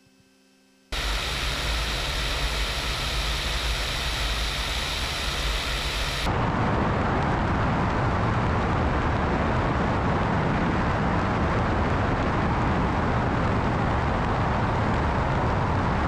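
Wind rushing over a camera mounted outside a small propeller plane in flight, mixed with engine and propeller noise, as a loud, even rumble and hiss. It starts about a second in after a moment of near silence and changes tone, losing some hiss, about six seconds in.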